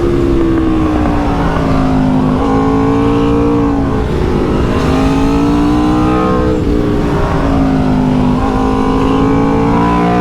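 Motorcycle engine being ridden hard through a run of bends, its pitch sagging and climbing again about every two seconds as the throttle is closed and reopened, over rushing wind and road noise.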